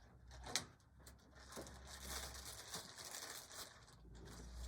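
Faint kitchen handling sounds of cornstarch being measured out: one sharp click about half a second in, then soft scraping and rustling.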